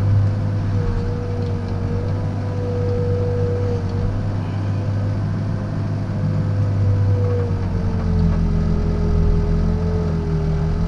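Backhoe's diesel engine running steadily while digging, with a steady whine above it; about eight seconds in the engine note shifts as the load changes.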